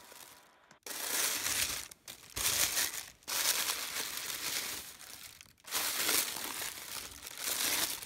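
Tissue paper wrap crinkling and rustling as hands pull it aside. It comes in several bursts with short pauses between them, starting about a second in.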